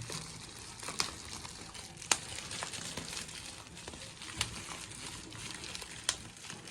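Light handling sounds: a few scattered sharp clicks, about four over several seconds, over faint crinkling.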